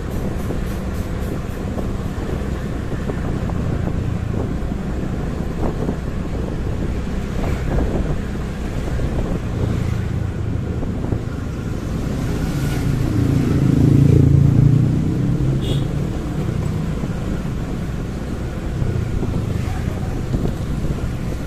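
Motorcycle ride through city traffic: steady engine and road rumble. A louder engine swells and fades about two-thirds of the way in.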